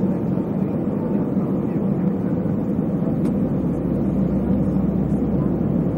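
Airbus A320 airliner in flight on its way in to land: a steady, even rumble of engines and rushing air.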